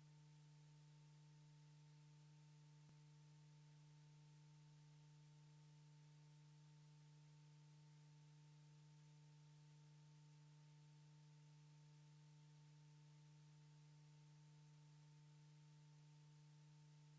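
Near silence: only a faint, steady low hum with a few higher overtones, unchanging throughout.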